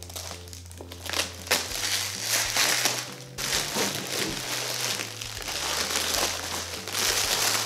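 Foil wrapper of a giant Kinder Surprise Maxi chocolate egg crinkling and crumpling in irregular bursts as it is torn open and pulled off by hand, over quiet background music.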